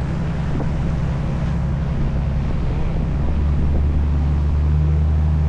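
A sightseeing boat's engine running with a steady low drone, with wind and water noise over it. About three seconds in, the drone grows louder and heavier as the boat speeds up.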